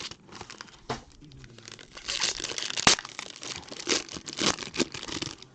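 Plastic packaging crinkling and tearing as trading card boxes and packs are unwrapped by hand, with a sharp click a little before three seconds in.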